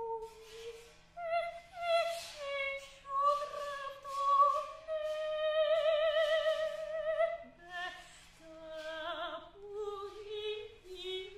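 Female soprano singing solo in an operatic, contemporary classical style with wide vibrato. Short phrases give way to a long held note in the middle, then a few lower notes near the end.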